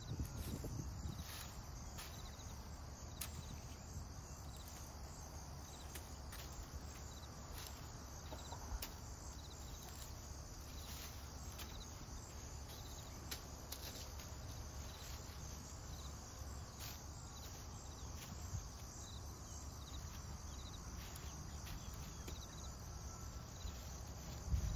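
Insects chirping steadily and high-pitched, with scattered light clicks and taps throughout and one louder knock near the end.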